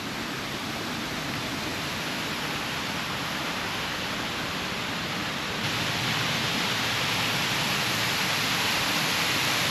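Steady rushing of falling water from a waterfall or stream, growing a little louder about six seconds in.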